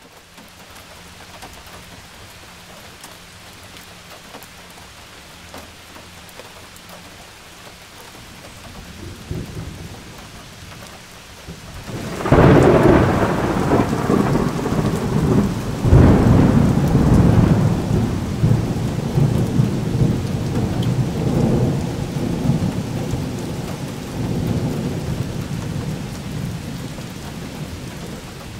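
Hailstorm: a steady hiss of rain and hail falling, then a sudden loud thunderclap about twelve seconds in and another about four seconds later, each followed by rumbling thunder that slowly fades.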